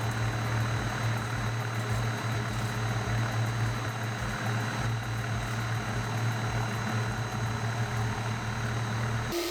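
Kokusan top-discharge centrifuge running, a steady low motor hum with a whirring rush over it. It changes abruptly just before the end to a different, steadier tone.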